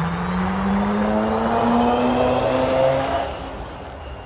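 Volvo FE Electric truck's twin electric drive motors whining with a rising pitch as it pulls away, with tyre and road noise loudest about two to three seconds in, then easing off as it drives away.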